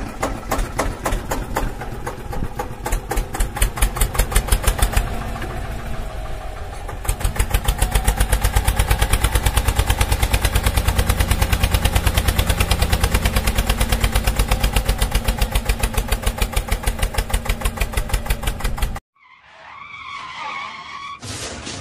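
Tractor engine sound: a rapid, even chugging that runs steadily and grows louder about a third of the way in. It cuts off abruptly near the end, and a shorter, fainter, higher sound follows.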